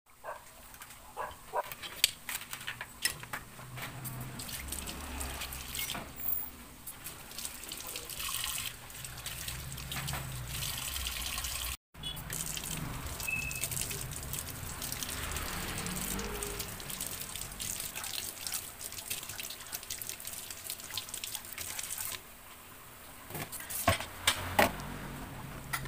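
Leafy greens and dishes handled with scattered clicks, then a kitchen tap running into a stainless steel sink as the greens are rinsed by hand. The water stops near the end, followed by a couple of sharp knocks.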